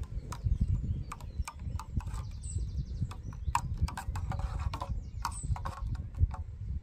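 Long-handled metal spoon stirring in a metal camping mug, clinking and scraping against the inside in quick, irregular taps over a steady low rumble.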